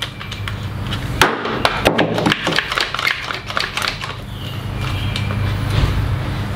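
Irregular knocks and clatter of tools and mower parts being handled and set down on a wooden bench, over a steady low hum.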